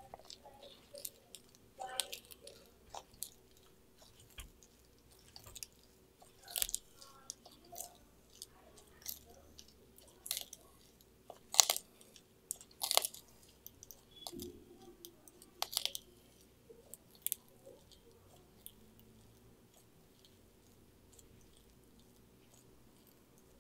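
Sulcata tortoise biting and chewing a kale leaf: irregular crisp crunches and tearing clicks, thinning out over the last few seconds.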